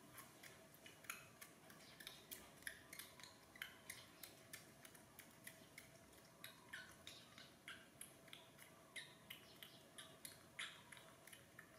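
Baby monkey suckling milk from a feeding bottle: faint rapid sucking clicks at the teat, about three a second.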